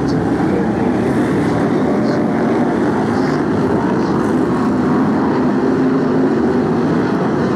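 Several BriSCA F1 stock cars' V8 engines running together, a loud steady wall of engine noise as the pack circles the track.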